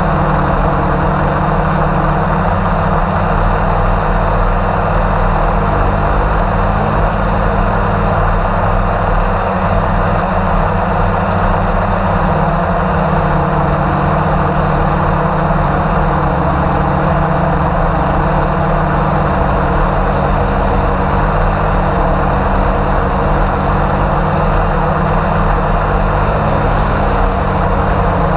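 Multirotor drone's motors and propellers running in flight, a steady hum that holds the same pitch throughout, heard through the camera carried on the drone.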